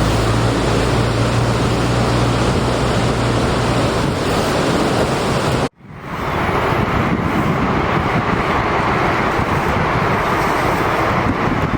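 Wind buffeting the microphone over open water, with a low steady motor hum underneath. About halfway through the sound cuts out abruptly, then returns as wind noise without the hum.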